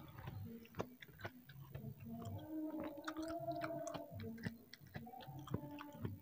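Close-up chewing of a mouthful of rice and sambal goreng pete, with many small wet mouth clicks and smacks. A low hum sounds around the middle.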